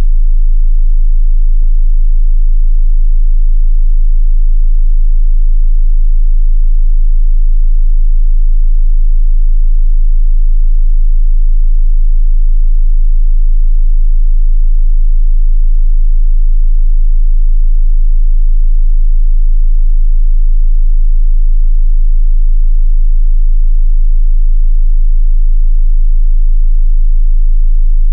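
A continuous 27 Hz sine-wave test tone, a single very deep bass pitch held steady and loud, meant for testing subwoofers.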